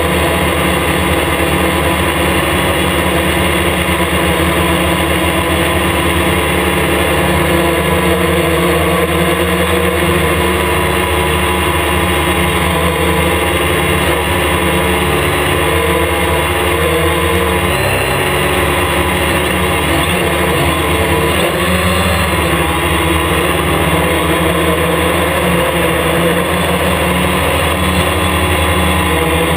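Hexacopter's electric motors and propellers whining steadily, heard up close from the camera fixed to its frame. The pitch wavers briefly about two-thirds of the way through as the motor speeds change.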